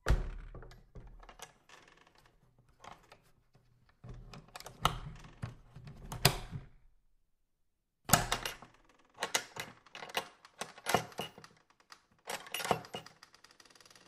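A worn-out, rickety door creaking as it is swung, in two bouts with a short pause about seven seconds in. Each bout starts with a sharp knock, followed by a series of rasping creaks and clacks.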